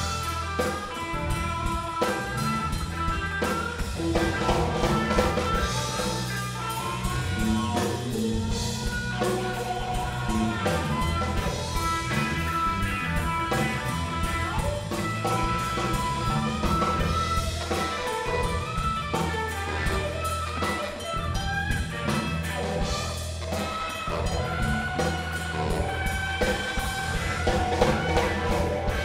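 Live blues band playing an instrumental passage: electric guitar, drum kit and bass, with a saxophone on stage, steady and full throughout.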